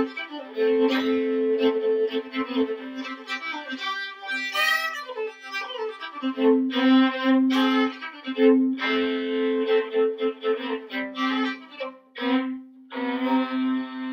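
Solo fiddle playing a bowed tune, with a steady drone string sounding under the melody. The tune closes near the end on a long held note.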